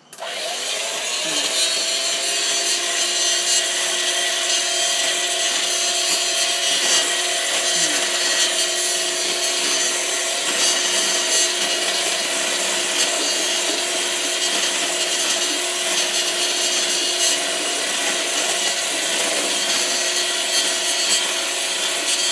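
Electric mixer switching on and running at a steady speed, its motor whining and its beaters churning butter in a stainless steel bowl: creaming the butter until pale and fluffy.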